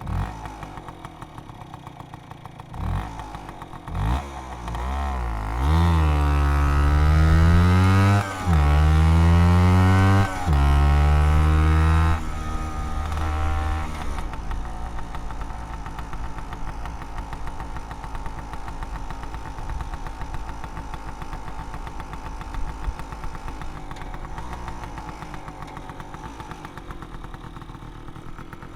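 Aprilia Habana 125 scooter engine idling, blipped a few times, then revved hard three times in a row from about five seconds in, the pitch rising and falling with each rev. It drops back to a steady idle at about the halfway point.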